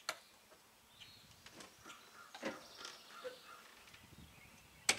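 Travel-trailer entry door: a sharp latch click as it opens, scattered knocks and steps as someone climbs down out of the trailer, then a louder latch click near the end as the door is shut.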